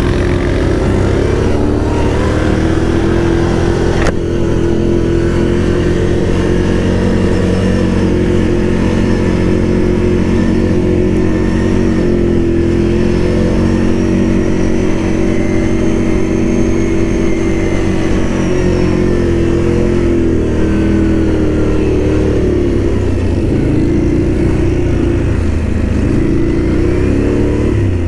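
ATV engine revved and held at steady revs, then the revs waver up and down near the end. A single sharp knock about four seconds in.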